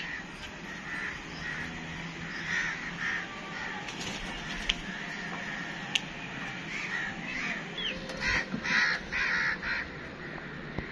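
A flock of crows cawing repeatedly, with a run of several loud caws close together near the end.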